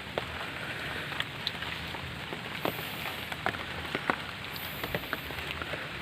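Steady rain falling, with irregular sharp taps of drops striking a hard surface close by.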